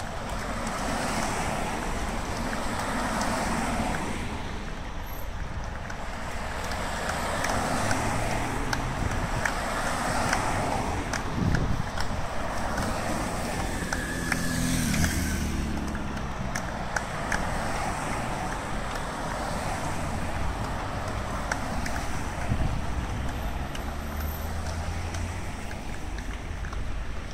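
Hearses driving past slowly one after another, a steady rush of tyres and engines swelling and fading as each car passes. About halfway through, a police motorcycle's engine goes by, its note falling as it passes.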